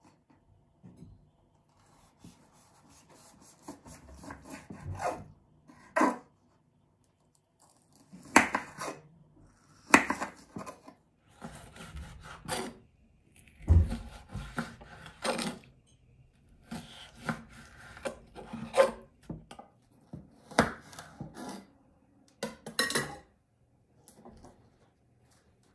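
Chef's knife slicing a bell pepper into strips on a wooden cutting board: irregular sharp knocks of the blade against the board, with softer scraping between the cuts and a few short pauses.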